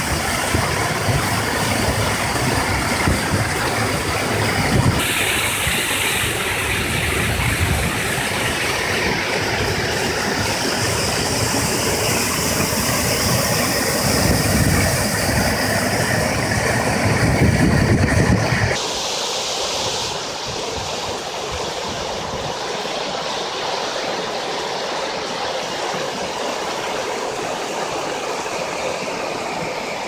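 Lake water pouring over the concrete overflow edges of a dam into a square drop shaft, a steady rushing spill. About 19 seconds in the deep rumble falls away and a thinner, hissing rush of water remains.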